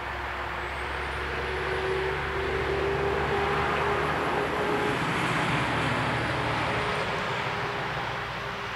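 A passing vehicle: a rushing noise that swells to its loudest about halfway through and fades toward the end, with a faint high whine over it.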